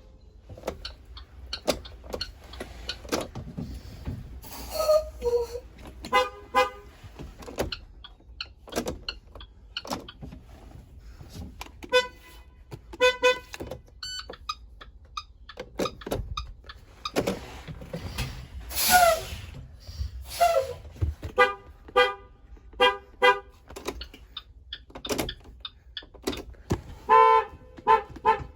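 School bus horn tooted over and over in short honks, often several in quick succession, with a longer blast of wavering pitch about two-thirds of the way through.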